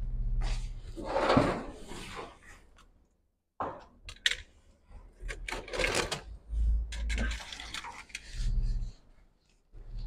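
Handling and rummaging noises: irregular clicks, clatter and rustling with a few dull thumps as items are moved about while a donor logic board is fetched.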